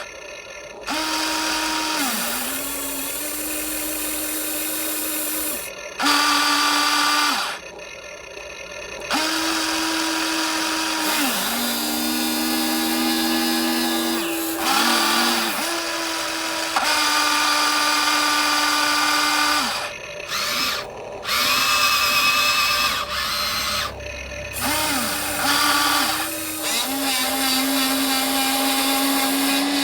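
Electric motors of a metal RC excavator whining in repeated bursts of one to several seconds. They start and stop as the controls are worked, and the pitch often drops briefly as a motor spins down.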